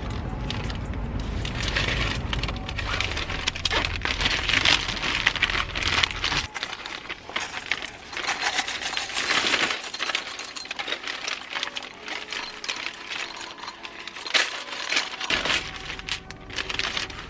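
Coins clinking and rattling against one another and against metal, loose change handled and poured out of a vending machine's coin box, in a dense run of small clicks.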